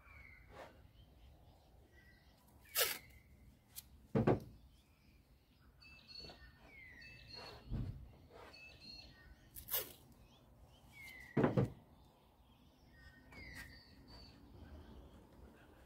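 Birds chirping with short falling calls throughout, and a handful of sharp knocks and thumps from hands working tape and a paper template against the ute's steel front guard.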